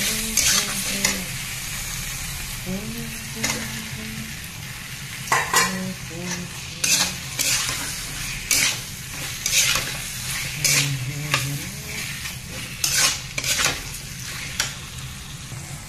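Prawn and potato curry frying in thick masala in a metal kadai, with a steady sizzle. A flat metal spatula scrapes and clinks against the pan every second or so as the masala is stirred and turned.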